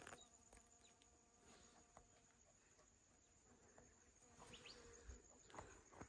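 Near silence: a faint, steady buzzing of an insect, with a few soft footsteps in the last two seconds.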